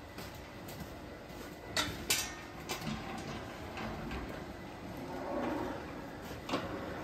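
A few sharp metal clanks and knocks from a steel cattle hoof-trimming crate as it is worked, the loudest two close together about two seconds in and another near the end, over low barn ambience.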